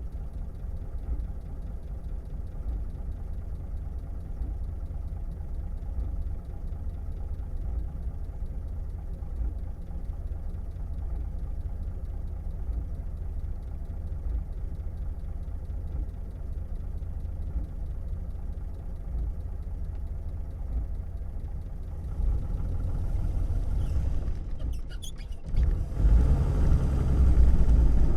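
1937 Plymouth's flathead six-cylinder engine idling steadily, heard from inside the car. About 22 seconds in it grows louder, a few sharp clicks come near the 25-second mark, and then the engine revs up with a rising pitch as the car pulls away.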